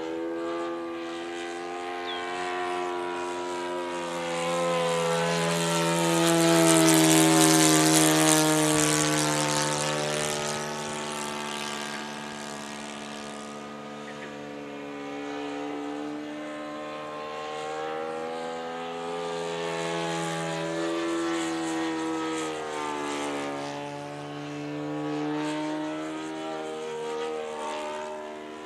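Radio-controlled model Hawker Hurricane flying past repeatedly, its engine and propeller drone swelling and fading, with the pitch dropping as it passes. The loudest, closest flyby comes about seven seconds in, with quieter passes later on.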